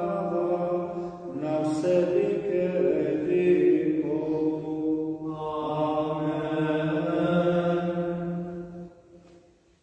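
A priest's solo male voice chanting a liturgical text in slow, long-held notes in a reverberant church, fading out about a second before the end.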